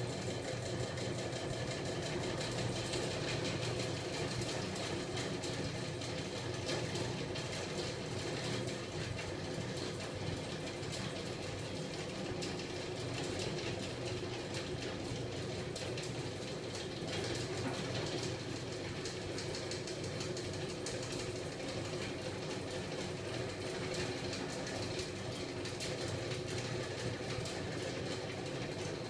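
Homemade magnet-engine rig running: a small 12 V electric motor turns its crankshafts and spring-loaded linkage. The sound is a steady mechanical whir with rapid fine ticking that goes on without a break.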